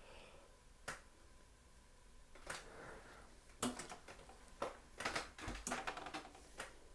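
Laptop keys being pressed: irregular clicks and taps, a few spaced out at first, then a quick run of them a little past the middle.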